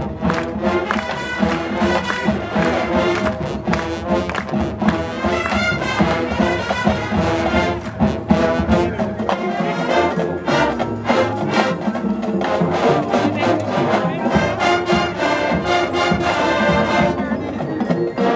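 High school marching band playing loud brass-led music, with drum hits throughout.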